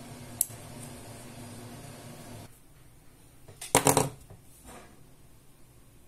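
Handling of a small keychain COB light: one sharp click about half a second in as its carabiner clip is hooked onto jeans, then a brief, louder cluster of clicks and knocks about four seconds in.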